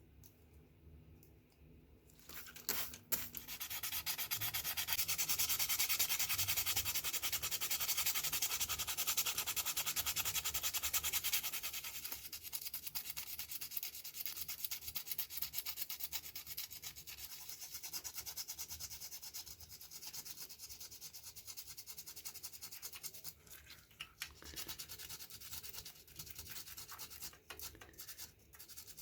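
A part of the razor being sanded: a rapid, scratchy abrasive rasp that starts about two seconds in, is loudest for the next ten seconds or so, then carries on more softly.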